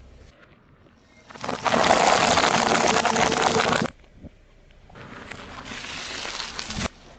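Car tyre rolling over and crushing objects: a loud stretch of crushing noise lasting about two and a half seconds, then after a short pause a quieter second stretch. Each cuts off suddenly.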